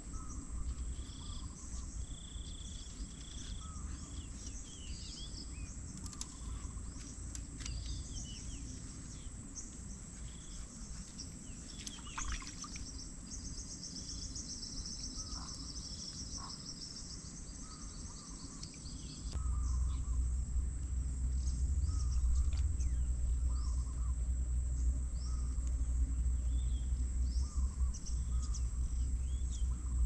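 Rural outdoor ambience: birds calling in short, scattered chirps over a steady high insect whine, with a brief buzzing trill about halfway through. About two-thirds of the way in, a louder low rumble sets in and stays.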